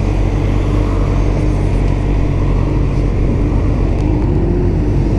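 Suzuki sportbike engine idling at a standstill, a steady low hum, with a brief rise-and-fall in pitch about four seconds in.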